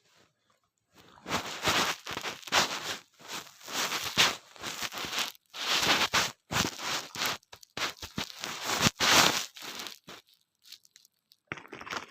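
A hard, crunchy snack being chewed: loud, irregular crunches in clumps from about a second in until about ten seconds in.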